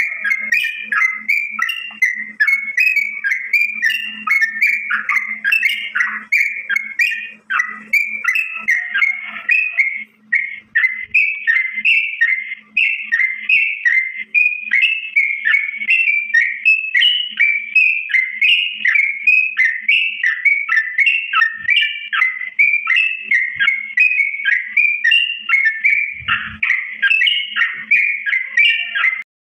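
Cucak ijo, a green leafbird (Chloropsis), singing a long, fast, unbroken run of chirping and warbling notes in full song. There are short breaks about ten and fourteen seconds in, and the song cuts off suddenly near the end, over a faint steady hum.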